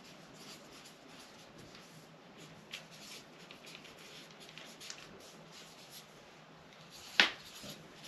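Drawing on pattern paper: many faint, quick strokes as the curve of a circle-skirt pattern is finished, with one sharper tap a little after seven seconds.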